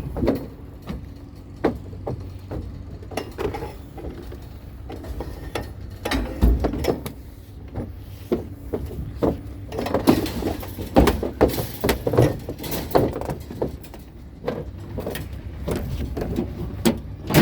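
Scrap pieces being handled and knocked together: an irregular run of clanks and rattles, busiest in the middle, over a steady low hum.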